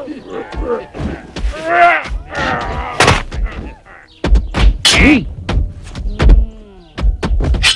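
Film fight sound effects: a series of sharp punch and kick impacts, mixed with a man's pained cries and shouts, plus a line of spoken dialogue.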